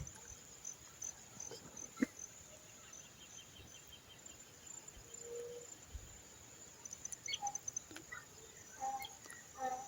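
Insects chirping faintly in fast, high, regular pulses, with a few short soft sounds near the end.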